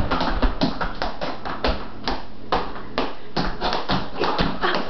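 Tap shoes striking a tiled kitchen floor in a quick, uneven run of sharp taps, about four or five a second: tap dancing.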